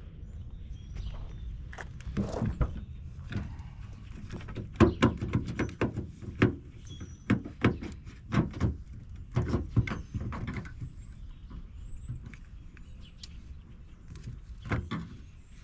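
Hand work inside a Nissan 350Z's door: a run of sharp clicks and knocks as tools and door parts are handled, thickest from about five to eleven seconds in, with a few more near the end.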